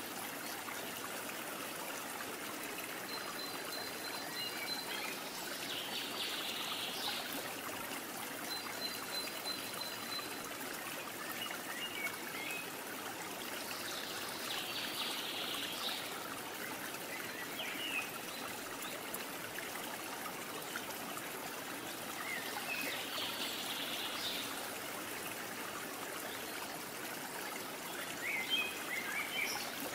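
Steady rushing background noise, with faint short high chirps that come back every several seconds.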